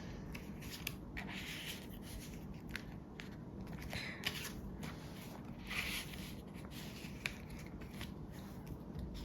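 Faint rustling and crinkling of plastic photocard sleeves and binder pages being handled, with scattered light clicks and taps.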